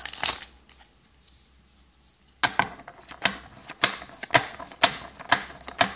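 Foil booster-pack wrapper crinkling briefly at the start, then after a short lull a run of sharp clicks, about two a second, as trading cards are flicked one past another through the pack.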